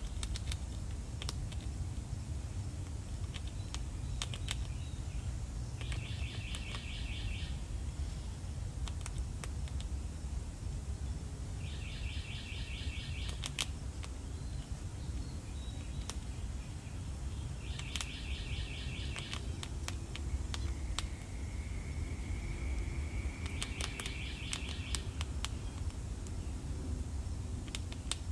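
A bird repeating a short trilled call about every six seconds, over a steady low background rumble. Scattered sharp clicks come from a grey squirrel gnawing kernels off a dried ear of corn.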